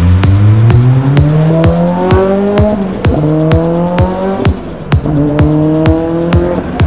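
A sports car's engine accelerating hard, its pitch climbing through each gear and dropping at three upshifts. A music track with a steady beat plays over it.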